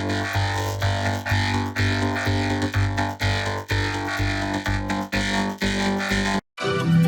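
Heavily effected electronic synthesizer music with a steady pulsing beat about twice a second. It cuts out briefly near the end and comes back with an organ-like sound.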